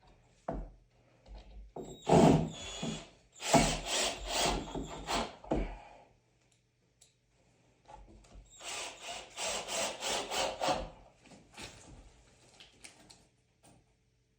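Wood being worked by hand with a tool: three bursts of rapid back-and-forth scraping strokes, about four a second, with short pauses between.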